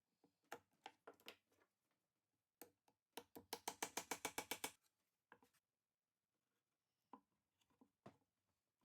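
Scattered light clicks and knocks of hand work with tools and wood, with a rapid run of about nine clicks a second lasting about a second and a half in the middle.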